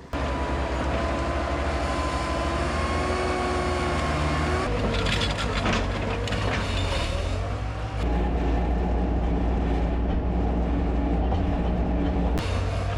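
Bobcat skid steer diesel engines running hard under load while pulling a stuck skid steer out with straps. The steady engine sound shifts abruptly a few times.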